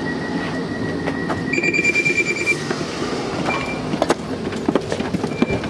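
Train noise at a station: a steady rumble with a long electronic tone, a quick run of beeps about a second and a half in and two short beeps later, with footsteps over it.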